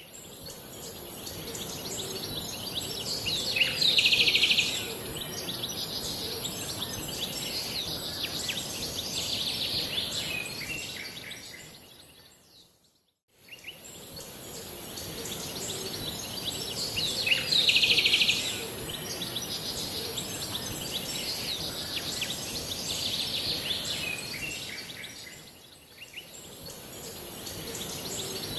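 Birds chirping over a steady high hiss, a nature-ambience track that loops. It fades out about halfway through and starts again, with the same burst of louder chirping a few seconds into each pass.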